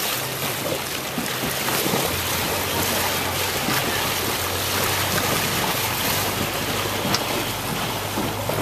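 Water rushing and splashing around a sailing yacht under way, with wind buffeting the microphone and a low steady hum underneath.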